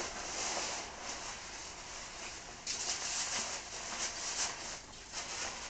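Rustling and crinkling of plastic wrapping and fabric gear being handled, with soft irregular rubs that get louder about two and a half seconds in.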